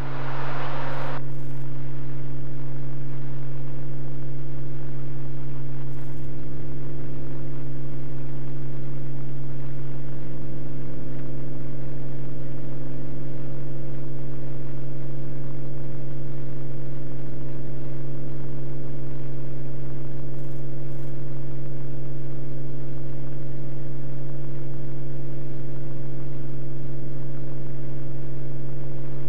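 Beechcraft Bonanza F33's six-cylinder piston engine and propeller running steadily at high power in the climb just after takeoff, an even drone with a strong low hum.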